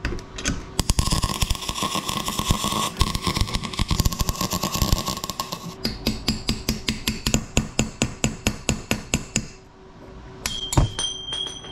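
Rapid metal-on-metal strikes as an old wheel bearing race is driven out of a VW bus front brake drum. For the first half the strikes run fast and dense, then they settle into an even rapid tapping. Near the end there is one sharp clink with a ringing metallic tone.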